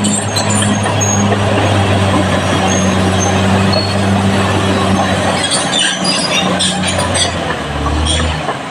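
Caterpillar D6R bulldozer's diesel engine running steadily under load, with high squeaks and clinks from its steel tracks. The engine note drops lower about a second before the end.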